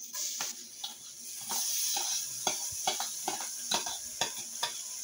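Raw rice being scraped off a plate with a spoon into hot oil in a pot. The oil sizzles, louder from about a second and a half in as the grains hit it, and the spoon clicks and scrapes against the plate and the pot again and again.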